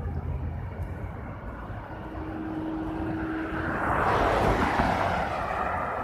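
Street traffic: a passing vehicle's engine and tyre roar swells about four seconds in and then eases off, over a steady low rumble.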